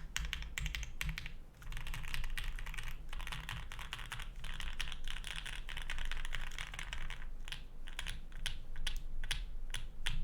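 Typing on a Polaris custom mechanical keyboard with lubed and filmed Banana Split linear switches, an FR4 plate and GMK Space Cadet keycaps. The keystrokes come in fast runs of clicks with a brief pause near the start, then thin out to separate, spaced keystrokes near the end.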